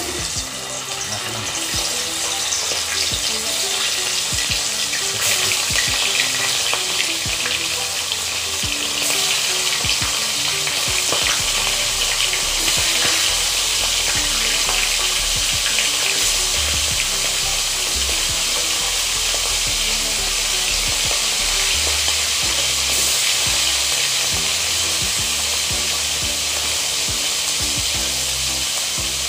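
Salted fish sizzling as it fries in hot oil in a wok. The sizzle builds over the first couple of seconds as pieces go in, then holds steady, with brief louder spits now and then.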